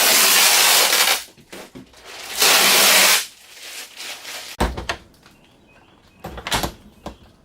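Protective plastic film being peeled off a new stainless steel refrigerator door: two long, loud ripping peels, the second about two seconds in, followed by a few light knocks of the door being handled.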